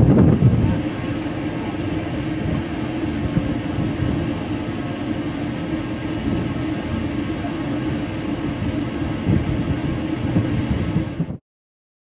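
Steady low rumble of a boat's engine, with wind buffeting the microphone. It cuts off abruptly near the end.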